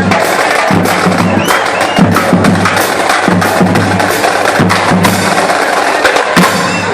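Drum corps drumline playing a loud percussion passage: rapid, dense snare and tenor drum hits over a rhythmic pattern of pitched bass drum notes.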